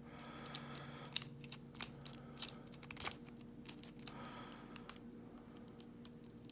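Lock pick and tension tool working in the keyway of a Godrej Scorpio dimple padlock: small, sharp metal clicks and ticks at irregular intervals.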